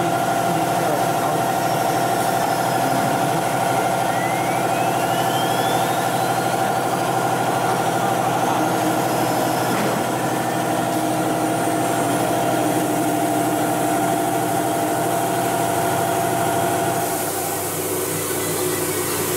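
CNC router running, its 9 kW air-cooled spindle and machine drives giving a loud, steady hum with a faint rising whine through the middle. Near the end the steady tone drops away and a brighter hiss takes over as the bit cuts into the wooden board.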